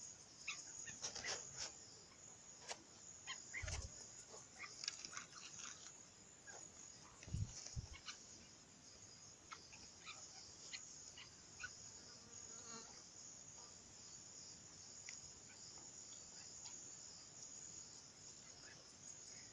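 Faint, steady high-pitched chorus of insects calling, with scattered small clicks and two low thumps, about 4 and 7.5 seconds in.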